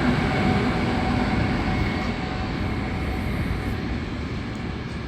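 Freight train passing on the rails, a steady rumble of wheels and wagons with a faint whine over it, slowly getting quieter.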